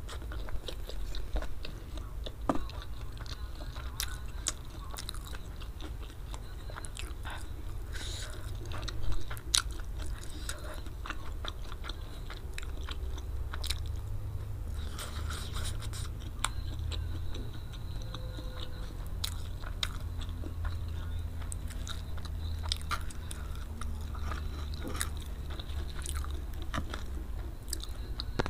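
Close-up chewing of spicy fried flat rice noodles (kwetiau), with many wet mouth clicks throughout and a louder knock about nine seconds in, over a steady low hum.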